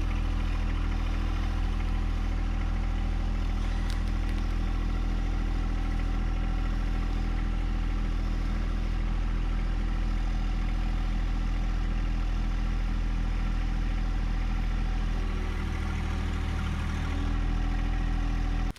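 John Deere 1025R compact tractor's three-cylinder diesel engine running steadily, with a brief dip in level and pitch about fifteen seconds in before it picks back up, then cutting off abruptly at the end.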